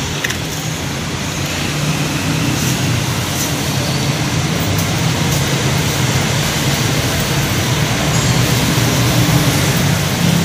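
Steady low drone of running machinery in a workshop, with a few faint metallic clicks as steel power-steering lines are handled.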